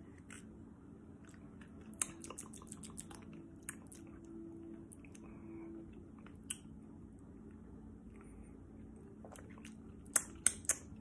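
Quiet mouth noises of someone tasting a sour liquid candy: scattered lip smacks and tongue clicks, with a quick cluster of three sharper smacks near the end.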